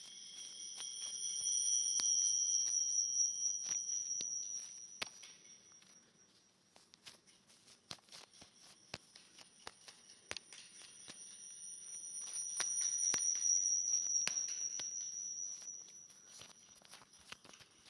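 Audio feedback whistle from a microphone looping through a computer and camcorder: a high-pitched steady tone swells up and fades away twice, over scattered crackling clicks.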